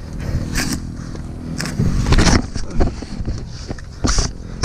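Off-road motorcycle engine idling steadily, with a few short louder bursts over it and a brief hiss near the end.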